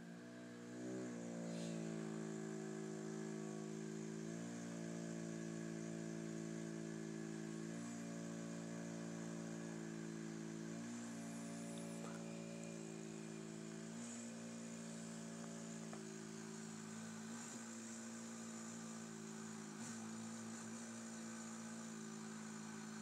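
CPAP mask making a steady droning hum over a hiss of air, the tone dipping and bending briefly about every three seconds with the sleeper's breaths.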